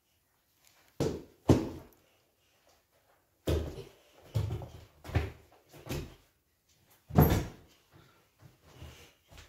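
A small child's feet and hands thumping as he jumps, lands and scrambles over a carpeted floor, a leather ottoman and a sofa: about seven separate thumps, the loudest about a second and a half in and about seven seconds in.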